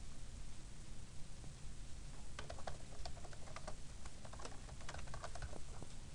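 Typing on a computer keyboard: a quick, uneven run of keystrokes with short pauses, starting about a second and a half in and stopping shortly before the end.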